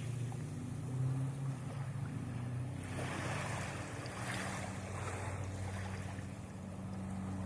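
Small ocean waves washing onto the sand, with swells of surf about three and four seconds in, over a steady low mechanical hum.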